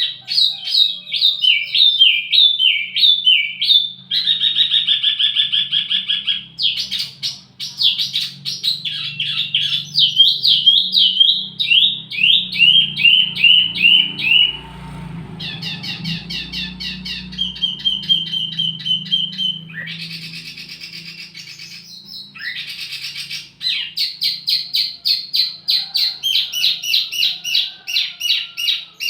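Wambi mini songbird singing: fast runs of repeated high chirps and trills in changing phrases, with a short buzzy note a bit past the middle. It is played as a masteran, a song-tutoring and lure recording for tledekan birds. A faint low hum runs underneath.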